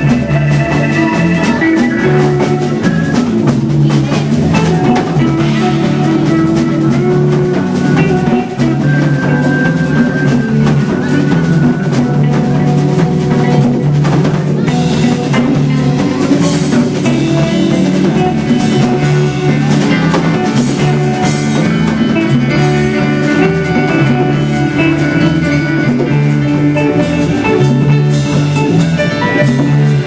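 Live band playing a song: drum kit, guitar and keyboard together, loud and steady throughout.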